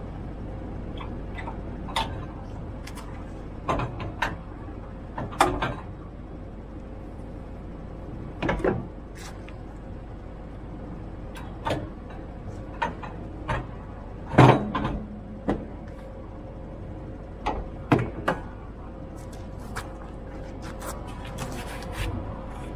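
Irregular metal knocks and clanks from fittings under the front of a semi-trailer being handled by hand, the loudest about two-thirds of the way through, over a steady hum.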